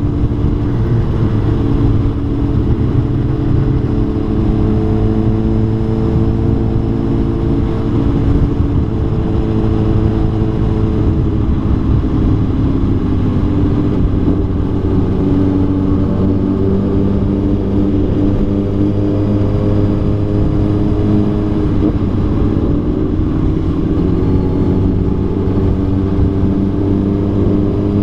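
Motorcycle engine running continuously at road speed, its pitch drifting slowly lower and higher, heard from on board the moving bike.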